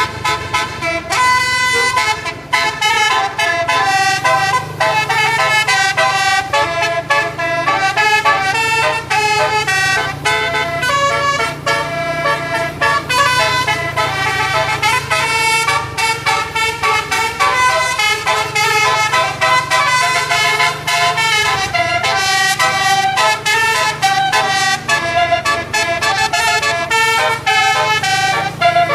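A bus's 12-note Basuri telolet horn playing a fast, continuous melody of short musical horn notes, with a steady low drone underneath.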